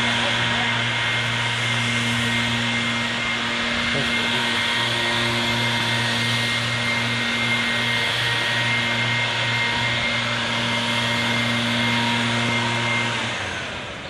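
A motor-driven machine running steadily, a noisy rush with a low hum and a higher whine, that winds down and stops near the end.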